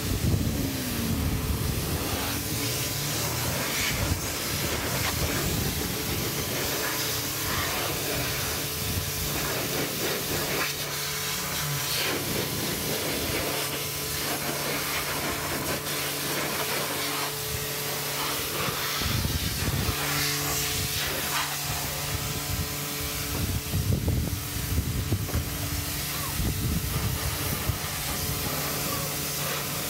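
Pressure washer jet spraying water onto a car's bodywork: a steady hiss of the spray, with a low steady hum underneath and brief louder swells as the jet moves across the panels.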